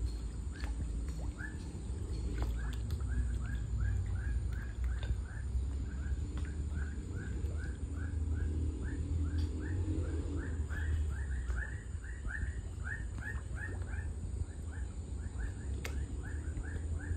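A small animal chirping steadily: short falling chirps, about three a second, over a low rumble.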